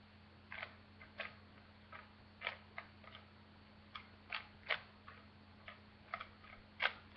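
Plastic speed cube being twisted by hand: about fourteen sharp, unevenly spaced clicks as its layers are turned, over a faint steady low hum.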